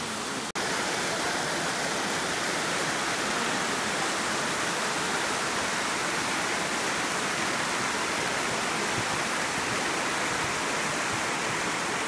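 Small creek rushing and splashing down over mossy rocks in little cascades, a steady rush of water that cuts out for an instant about half a second in.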